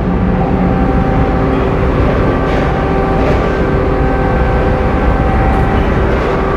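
Car ferry MV Queen of Cumberland's engines running steadily as it departs: a low rumble with several held humming tones, one lower hum fading out about a second in.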